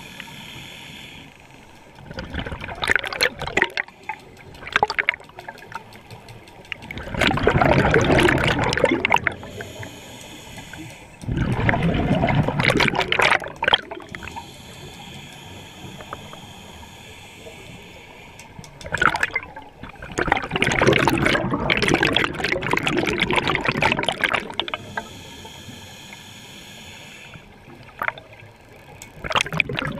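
Scuba regulator underwater: bursts of exhaled bubbles rushing out at irregular intervals, each lasting one to three seconds, with a quieter steady hiss between the breaths.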